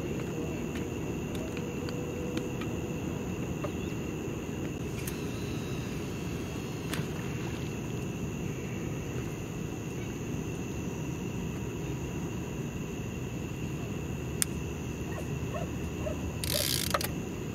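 Steady low rumble of outdoor night ambience with a constant high-pitched drone over it. A few light clicks of fishing tackle being handled, and a brief hissing rush about a second before the end.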